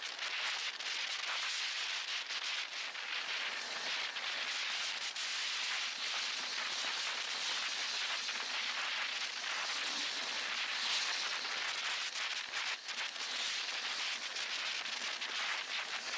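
Steady hiss with many small crackles from a camera mounted on a moving bicycle: the rush of air and road vibration on its microphone while riding.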